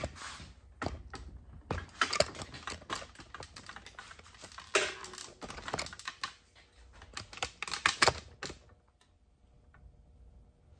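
Irregular clicks and knocks of a camera and its mount being handled and moved, stopping about eight and a half seconds in.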